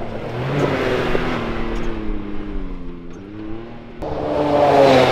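Turbocharged Can-Am UTV engine revving as it drives on dirt, its pitch sinking and then climbing again. About four seconds in it comes towards the camera, growing louder to its loudest as it passes near the end.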